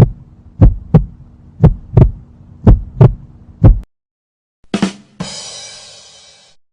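Heartbeat sound effect: deep thumps in pairs, about one pair a second, over a low steady hum. About five seconds in, a sudden hit and a bright, noisy crash follow and fade away.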